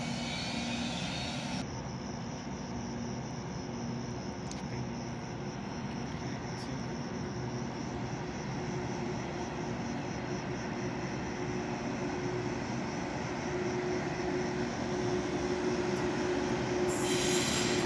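Approaching electric train heard from the platform: a steady rumbling drone with a hum that grows stronger, getting louder toward the end. Hissing and rattling rail noise comes in near the end as it nears.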